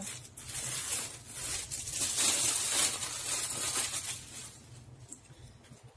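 Thin clear plastic bag crinkling and rustling as a hoodie is pulled out of it. The sound is loudest about two to three seconds in, then dies down.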